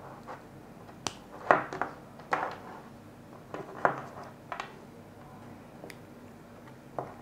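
Small plastic cable connectors and green terminal-block plugs clicking and tapping as they are handled and fitted together on a tabletop. There are about eight sharp clicks, the loudest about one and a half seconds in.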